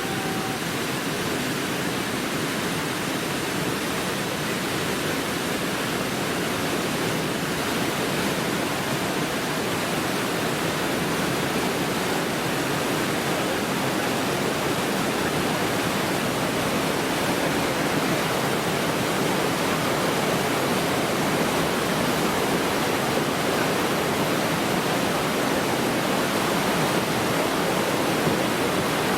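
Whitewater rapids of a canoe slalom course rushing steadily.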